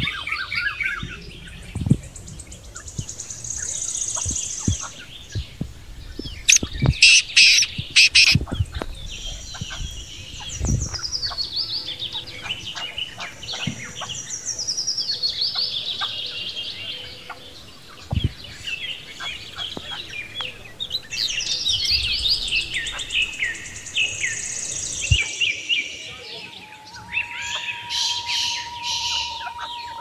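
Several birds chirping and calling in quick, overlapping series of high notes, many of them falling in pitch. A cluster of sharp clicks stands out about seven to eight seconds in.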